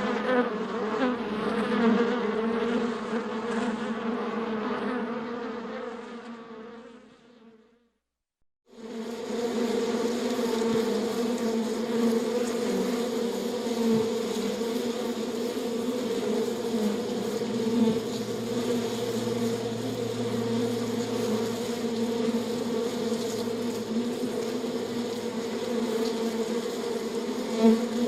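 A beehive humming: the steady drone of many bees buzzing together. It fades away about seven seconds in, falls silent for a moment, then comes back at full level.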